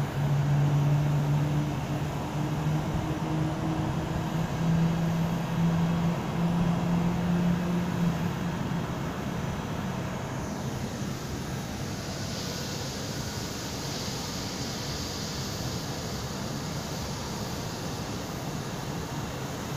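Jet airliner engines heard through terminal glass: a steady low hum that fades over the first eight seconds or so, then a falling whine about halfway through and an even hiss as the aircraft climbs away.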